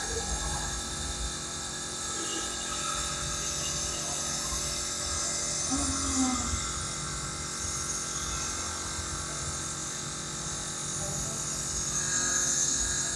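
Nebulizer's compressor running with a steady buzz and a hiss of air and mist, delivering inhaled medicine for a cough.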